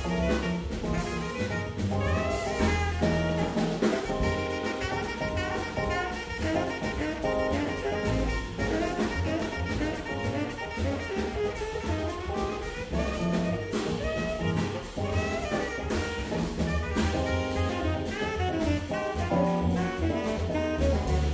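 Live small-group jazz: a tenor saxophone soloing in quick runs over upright bass, drum kit and Fender Rhodes electric piano.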